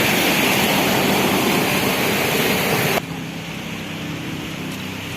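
Rushing floodwater, a loud steady hiss of moving water; it cuts off abruptly about three seconds in, leaving a quieter, low steady hum.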